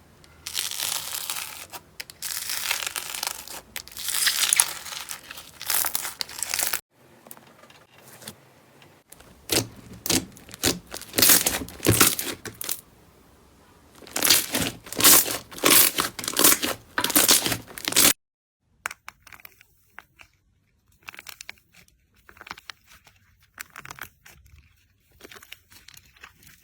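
Slime being squeezed, pressed and pulled by hand, giving dense crackling and popping. The sound changes abruptly twice, about seven and eighteen seconds in, and the last stretch is quieter and sparser.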